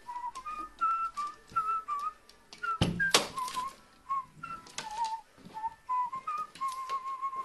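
A whistled tune of short, steady notes, over scattered clicks and taps from a carrion crow pecking at and handling a piece of plastic on a wooden shelf, with one louder knock about three seconds in.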